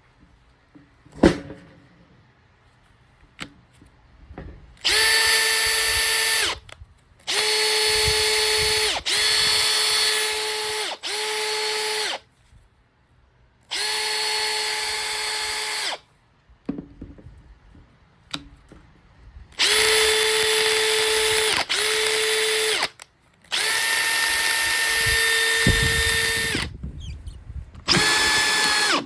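Makita DF481D cordless driver drill running in short bursts, about nine times, each one to three seconds long with brief pauses between. Each burst is a steady motor and gear whine. A sharp click comes about a second in.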